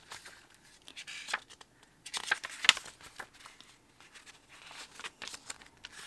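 Paper pages of a small notebook insert being turned by hand: a few short paper rustles, the loudest a little over two seconds in.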